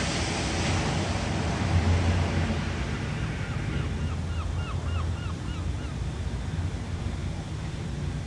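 Ocean surf washing steadily over a deep low rumble. From about three seconds in, a run of about ten quick chirps lasts some three seconds.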